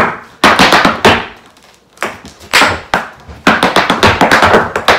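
Heeled shoes tapping and stamping on a hard floor in Irish dance steps: quick runs of sharp clicks and knocks with a pause of about a second in the middle, then a dense rapid run of taps.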